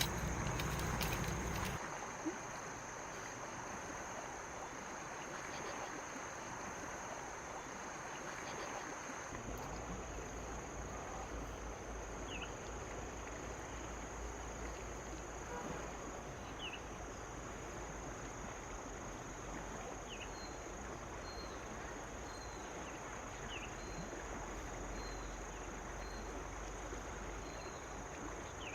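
Steady rain hiss with a constant high insect trill over it; faint short chirps repeat about once a second in the last third, and a low rumble comes in about a third of the way through.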